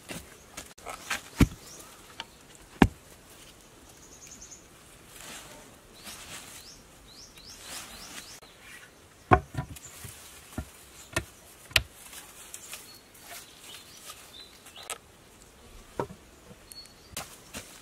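A digging stick striking and scraping into dry earth: irregular sharp knocks among soft scraping and rustling of loosened soil. Faint insect and bird chirps sound behind it.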